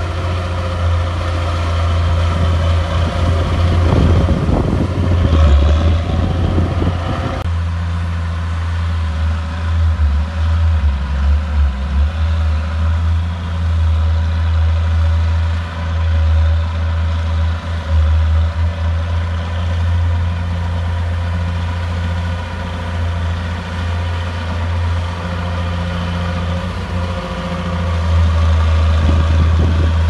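Diesel engine of a Komatsu D31 crawler bulldozer running steadily while it pushes dirt. A stretch of rattling and clanking about three to seven seconds in stops abruptly.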